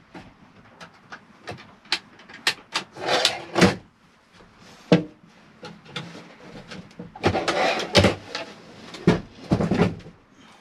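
Wooden flip-up bench and its cushions and bedding being handled: scattered clicks and knocks, with a few longer rustling, scraping bursts, the longest about three seconds in and again near the end.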